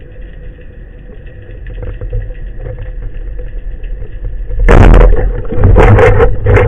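Muffled underwater rumble, then a sudden loud crack from a speargun firing underwater about three-quarters of the way through, followed by clattering and scraping as the shaft and line are pulled about.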